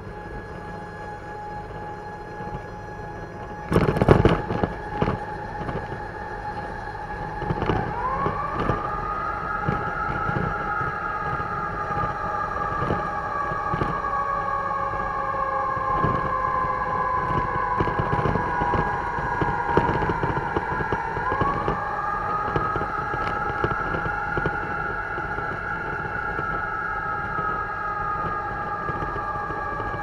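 Emergency siren in a slow wail: it swoops up about 8 seconds in and glides slowly down, then swoops up again about 21 seconds in. Underneath are a steady high tone and the road and engine noise of a moving fire truck. A loud thump comes about 4 seconds in.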